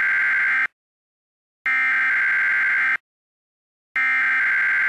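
Emergency Alert System SAME header: harsh, buzzy digital data bursts, the coded header that opens an alert. They repeat three times, each about a second and a quarter long with a second's silence between; the first ends shortly after the start and the third is still sounding at the end.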